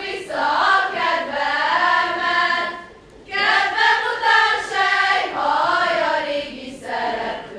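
A group of girls and women singing together as a choir, in sung phrases with a short break about three seconds in.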